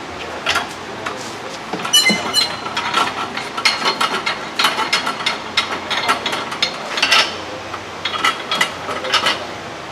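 Irregular metallic clanks, rattles and clicks of exhaust parts and tools being handled, with a ringing clang about two seconds in.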